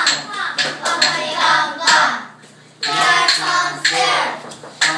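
Group of young children singing together and clapping their hands in a steady rhythm.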